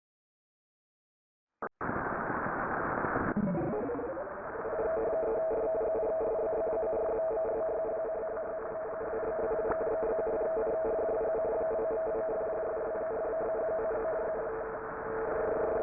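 Dead silence, then a click and hiss of line static, a tone sliding downward, and two steady tones sounding together like a telephone line tone, heard through a narrow, phone-quality channel.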